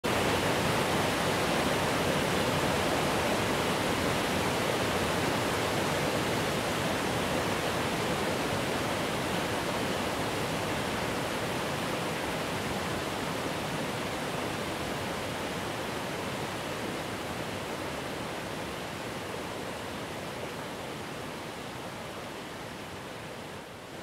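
Steady rushing of an 85 m waterfall and its stream, an even noise that slowly grows quieter and duller.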